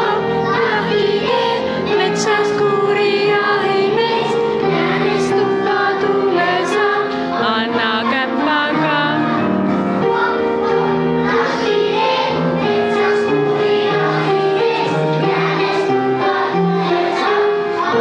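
A group of young children singing a song together over accompanying music.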